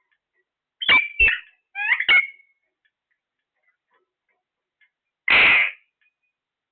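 Parrot calling: two quick pairs of short, sharp chirps about a second apart, then one harsh screech about five seconds in.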